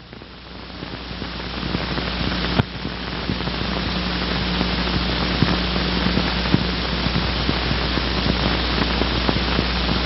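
Steady hiss and low hum of an old 16mm film soundtrack, fading up over the first couple of seconds, with a sharp click about two and a half seconds in and a few faint ticks.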